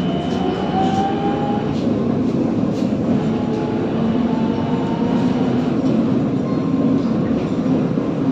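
VMZ-52981 trolleybus heard from inside the passenger cabin while driving, over a steady rumble from the body and road. Its electric drive whines, and the pitch slowly rises in the first second or so and again from about four to six seconds in.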